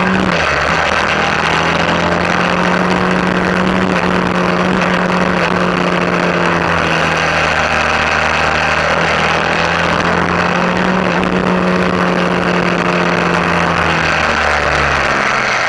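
Suzuki V-Strom 650's 645 cc V-twin engine running at a steady road speed, heard from a bike-mounted camera under a constant rush of wind. The engine note shifts just after the start and again near the end as the throttle changes.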